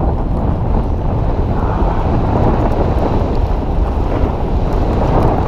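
Steady wind rush buffeting an action camera's microphone while sliding downhill at speed on snow.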